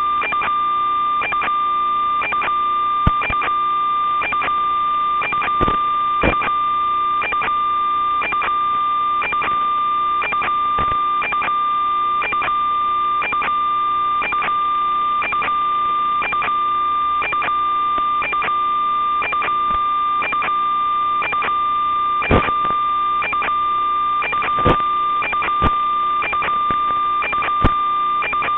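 Steady electronic buzz with unchanging tones, from the audio channel of an analog FPV video link. Faint ticks recur about every half second, with a few sharper clicks.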